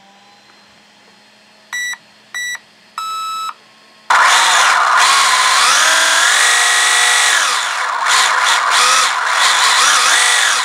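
An RC car's electronic speed controller gives three short arming beeps. Then the brushless motor spins up the 3D-printed truggy drivetrain with a loud gear whir, its pitch rising, holding and falling as the throttle is worked.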